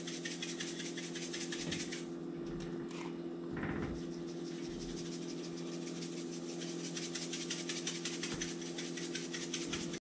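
Black pepper shaken from a shaker onto raw fish fillets: a soft, fast rattle, weaker for a few seconds in the middle, over a steady low hum.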